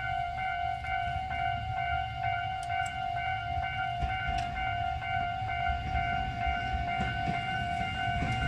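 Japanese railway level-crossing warning alarm ringing steadily as a single pitched tone with overtones, over a low rumble.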